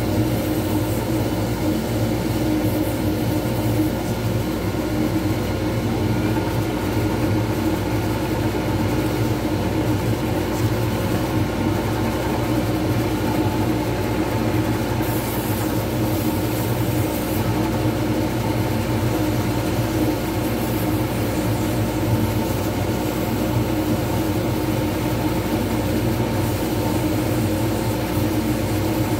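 Wood lathe running steadily, its motor and drive humming as it spins an acrylic resin pen blank on a mandrel.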